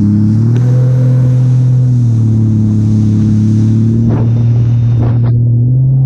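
Jet ski engine running steadily under way, a loud drone that steps up slightly in pitch about half a second in, with a rush of water and wind over it. Two short whooshes come about a second apart near the end.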